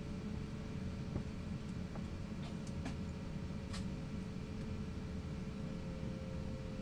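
Airbus A350-900 cabin noise while taxiing: a steady low rumble and hiss with a faint steady hum, and a few light ticks about two to four seconds in.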